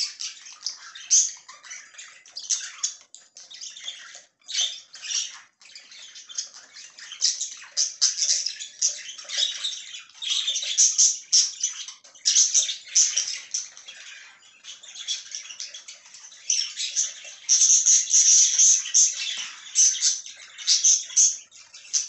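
Budgerigars chattering and warbling: a dense run of quick, scratchy high chirps, growing louder in stretches around the middle and again near the end.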